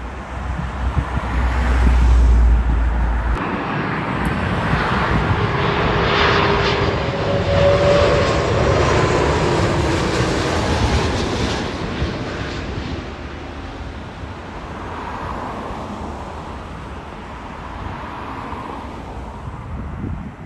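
Jet airliner engines passing by. The noise swells over the first couple of seconds, stays loud for about ten seconds with a faint whining tone gliding in it, then fades away. Wind rumbles on the microphone in the first few seconds.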